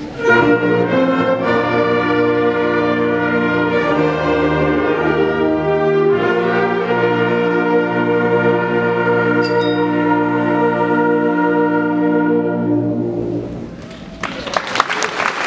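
School concert band of woodwinds and brass playing the closing bars of a piece: full held chords that fade out about thirteen seconds in. Applause breaks out near the end.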